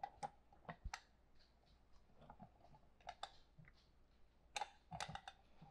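Faint scattered clicks and taps of a cast-metal lever lemon squeezer being handled and pressed, with a small cluster of clicks near the end.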